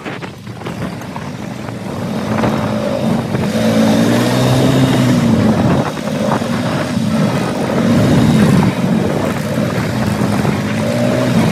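ATV engine running while riding, its pitch rising and falling with the throttle, with rushing wind noise.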